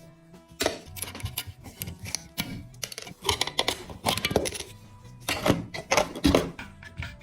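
Background music with irregular light clicks and metallic taps from small metal parts of a toy truck being worked on.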